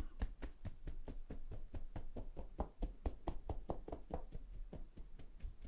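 Fingertips of both hands tapping all over the scalp in a self head-massage: a quick, even run of faint, light taps, several a second.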